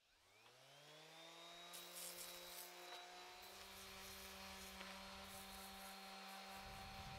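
Corded angle grinder spinning up, its whine rising in pitch over the first second or so and then holding steady. From about two seconds in it bears on a steel vise part, adding a hissing, uneven grinding scrape over the motor whine.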